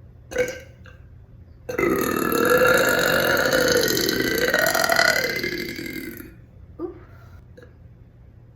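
A woman's long, loud burp lasting about four and a half seconds, its pitch wavering, with a short sound just before it and two small ones after.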